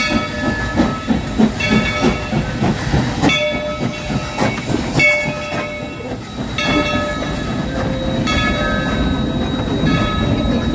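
Steam locomotive pulling away with its train, its exhaust chuffing in quick beats while its bell rings about every second and a half. From about halfway through, the beats blur into a steady rumble as the cars roll past.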